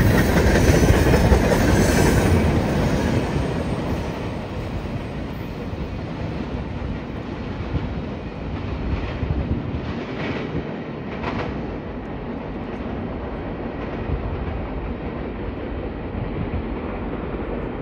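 Freight train cars rolling away on the rails. The rolling rumble fades over the first few seconds and then holds lower as the train recedes.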